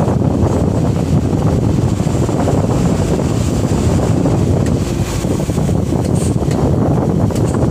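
Light diesel dump truck driving, heard from inside the cab: a steady low engine and road rumble, with a few light rattles in the second half.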